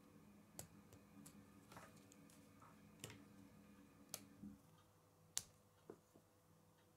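Plastic K'nex rods and connectors clicking and snapping as they are fitted together by hand: about eight sharp, separate clicks, the loudest about five seconds in.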